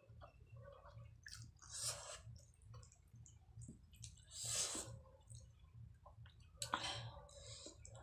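A person slurping and chewing spicy ramen noodles, with wet slurps about two, four and a half and seven seconds in and softer smacking chews between them.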